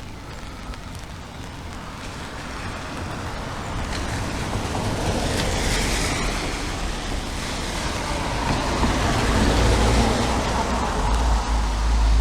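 A motor vehicle approaching on a wet road: tyre hiss that grows steadily louder, joined about two-thirds in by a low engine rumble.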